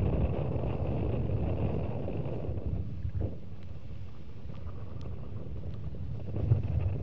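Wind buffeting the microphone on a boat at sea, with a low rumble underneath. It eases after about three seconds and picks up again near the end.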